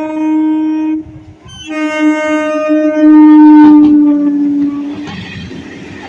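Electric multiple-unit local train's horn sounding two long blasts, with a short break about a second in; the second blast is the loudest as the train reaches the crossing. About five seconds in the horn stops and the noise of the coaches running past over the rails takes over.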